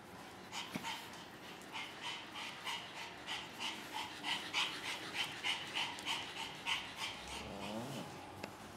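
A dog panting rapidly and evenly, about three breaths a second, with a short falling whine-like sound near the end.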